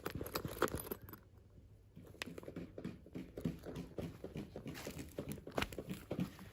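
Toy packaging being handled and opened by hand: plastic and cardboard crinkling and tearing, with many light taps and clicks. It goes quieter for about a second near the start.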